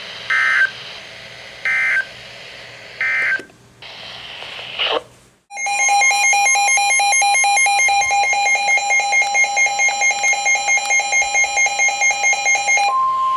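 Emergency Alert System end-of-message data code: three short, raspy digital bursts about a second apart, marking the end of a warning. After a brief break comes a loud, rapidly pulsing alarm tone. Near the end it changes to the steady single-pitch weather-radio attention tone that introduces the next warning.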